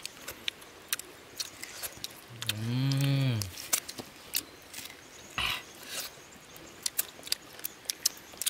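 Eating sounds from grilled fish being pulled apart by hand and chewed: scattered small clicks and smacks. About two and a half seconds in comes one low, drawn-out hum of about a second that rises and then falls in pitch.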